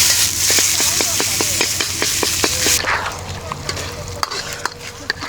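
Food frying in a pan with a loud sizzle while a cooking utensil clicks and scrapes against it. The sizzle stops abruptly about halfway through, leaving quieter clicks.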